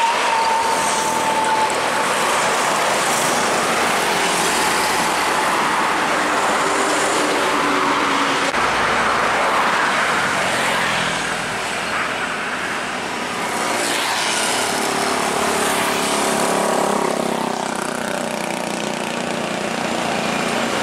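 Busy road traffic: trucks, cars and motorcycles passing close by, engines running and tyres on the road. A thin, slightly falling high tone sounds over it for the first second or two.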